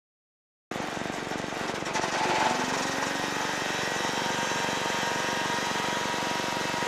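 Single-engine light aircraft's piston engine and propeller running steadily, heard from the cockpit. The sound cuts in abruptly about a second in and swells slightly around two seconds.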